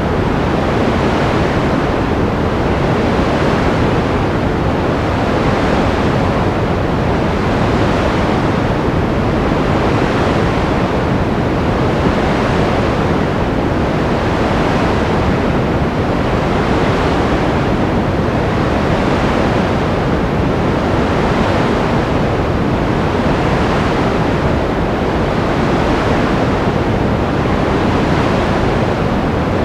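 Continuous ocean surf: a steady rushing wash of waves whose hiss swells and fades gently about every two seconds.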